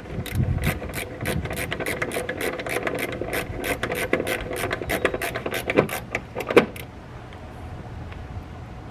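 Screwdriver clicking rapidly and evenly as it drives in the screws that hold a tail light assembly, about five clicks a second for some six seconds, ending with two sharper knocks.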